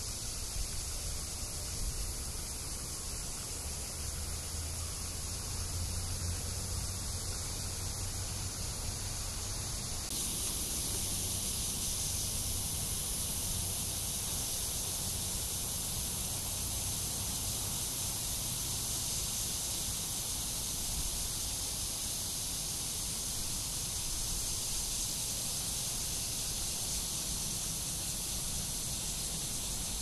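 Cicadas droning in a continuous high hiss-like chorus that grows louder and brighter about ten seconds in.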